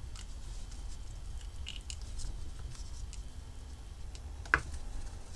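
Light scattered clicks and scratches of small wires, tools and a circuit board being handled at an electronics bench, with one sharper click about four and a half seconds in. A low steady hum sits underneath.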